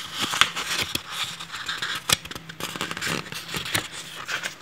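Paper pages of a printed book being turned and leafed through by hand: a quick run of papery crackles, flicks and rustles.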